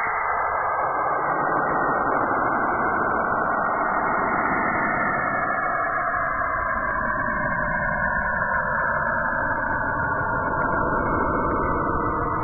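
Saturn's radio emissions, recorded by a NASA spacecraft and converted to sound: a steady, dense hiss in which faint bands drift slowly up and down in pitch.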